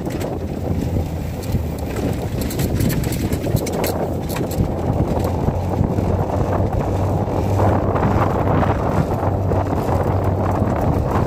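Golf cart driving along, with its steady running rumble and a low hum, and wind buffeting the phone's microphone; the rumble grows somewhat louder near the end.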